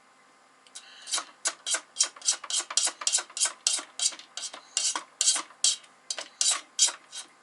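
A utensil scraping and stirring stiff peanut butter cookie dough in a mixing bowl, in quick, even strokes about three a second, starting about a second in.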